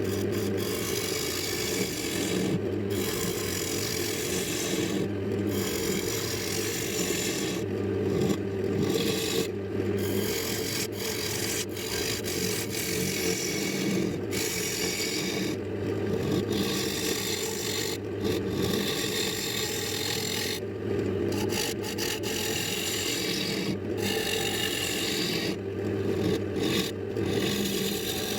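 Wood lathe running with a steady motor hum while something is held against the spinning walnut blank, giving a rough rasping, scraping noise. The rasping breaks off for a moment every couple of seconds, as the contact is lifted and set back.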